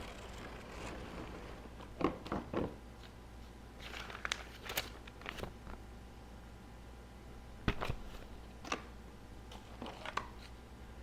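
Plastic packaging being handled while a cordless grinder kit is unpacked: irregular crinkles, clicks and knocks. A cluster of sharper knocks comes about two seconds in and another near eight seconds.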